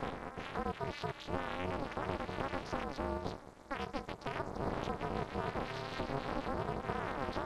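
Soundtrack of a Chicken McNuggets TV commercial run through heavy audio effects, its music warped into wobbling, warbling pitch sweeps that sound like a synthesizer. It dips briefly about three and a half seconds in.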